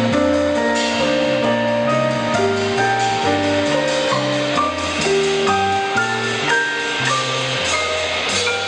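Instrumental jazz band playing live: drum kit, keyboard, electric guitar and saxophone, with a bass line stepping from note to note about twice a second under a melody of held notes.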